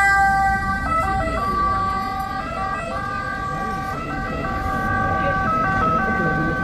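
Two-tone ambulance siren, its pitch switching between a high and a low note, growing fainter over the first couple of seconds as the ambulance pulls away.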